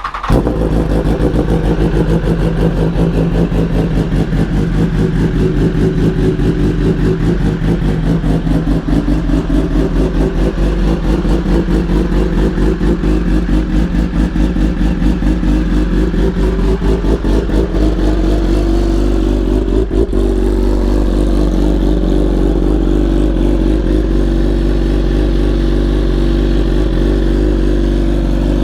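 BMW S1000RR's inline-four engine starting up, then running at a steady idle.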